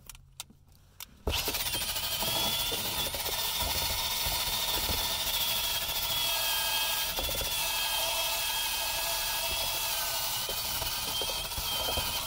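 Ridgid cordless drill spinning a wire cup brush against rusty sheet metal around a fuel pump access cover, scrubbing off flash rust. It starts about a second in, after a few faint clicks, and runs steadily as a high motor whine under a harsh scraping noise until it stops at the very end.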